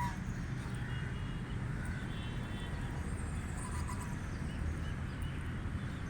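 A few faint, brief Canada goose calls over a steady low rumble. One curving call comes at the very start, with short calls about a second in, around two and a half seconds, and near four seconds.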